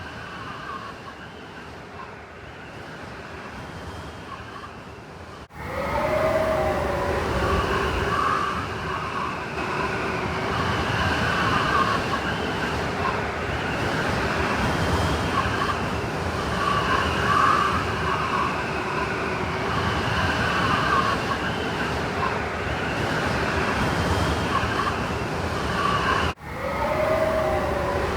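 Blizzard wind howling, a steady rushing noise with wavering whistle-like tones. It jumps abruptly louder about five seconds in and briefly cuts out near the end.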